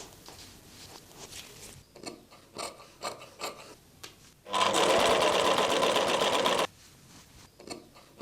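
Sewing machine running a burst of stitches for about two seconds, around the middle, with small clicks and fabric-handling rustles before and after.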